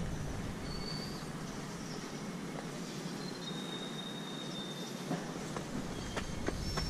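Open-air street ambience: a steady hiss of background noise with a few faint, thin high whistles, and sharp footsteps on stone paving in the last second.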